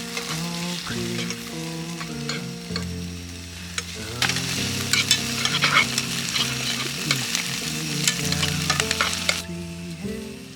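Food frying and sizzling in a pan, with clicks of a utensil stirring it. The sizzle swells about four seconds in and drops back near the end, over instrumental background music.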